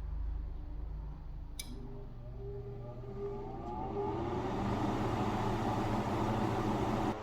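Blower fan of an old Bryant gas garage heater switching on: a click about one and a half seconds in, then the motor spinning up with a rising whine and settling into a loud steady rush of air, which drops off suddenly just before the end.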